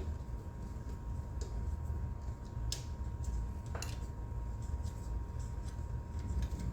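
Scattered light clicks and ticks of screws being backed out by hand with a screwdriver, two sharper clicks near the middle, over a steady low hum.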